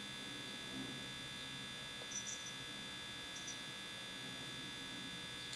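Faint steady electrical hum and buzz at several fixed pitches: room tone with no distinct event.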